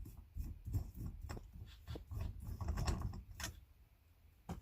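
Scattered clicks and knocks of a Nissan 300ZX's plastic centre console trim being handled and worked loose, with a sharper click near the end.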